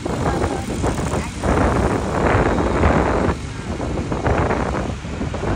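A vehicle running along a road, with wind buffeting the microphone in uneven gusts.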